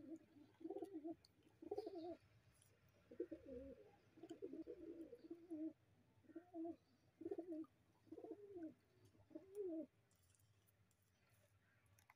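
Domestic pigeons cooing: a series of low, warbling coos, about nine in a row roughly a second apart, which stop near the end.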